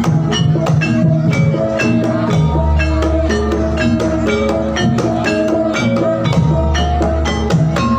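Javanese gamelan music for a jathilan dance, played loud: metal-keyed instruments in a busy run of notes over drum strokes, with a deep low tone swelling about every four seconds.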